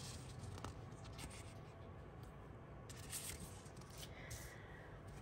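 Faint rustling and sliding of paper sticker sheets being handled and shuffled on a tabletop, in a few soft rustles.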